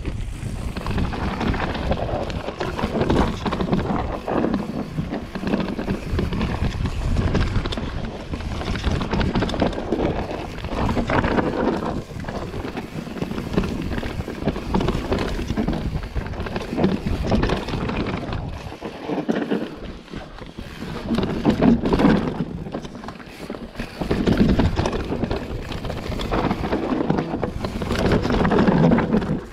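Mountain bike descending a rough dirt singletrack: wind buffeting the microphone over tyre noise on the dirt, with the bike knocking and rattling over bumps and the noise rising and falling with speed.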